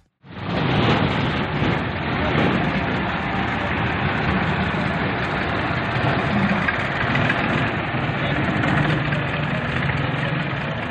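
Diesel engines of a farm tractor and a passenger bus running close by on a road, a steady mix of engine noise.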